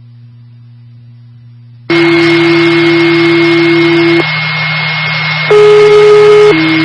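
Radio scanner: a faint low hum, then about two seconds in a loud rush of static carrying steady alert tones that shift pitch twice. These are dispatch paging tones, the tone-out that alerts fire and EMS units before a call is read out.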